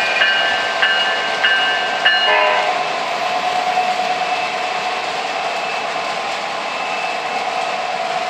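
Sound system of an O-gauge model diesel locomotive: its bell rings about every 0.6 s for the first two seconds, then stops, leaving a steady diesel-engine drone.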